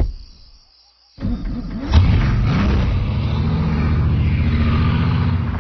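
Film soundtrack car sound: a sharp thump, then about a second of near quiet. A Bugatti Veyron's engine then comes in, surges near two seconds in and runs on loud and steady with a deep rumble.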